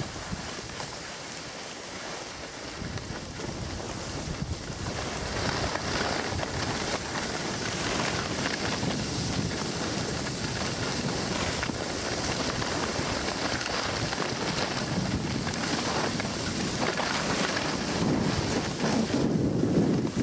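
Wind buffeting the microphone and skis hissing over packed snow during a downhill run, getting louder as the pace picks up a few seconds in, with heavier low rumble from the wind near the end.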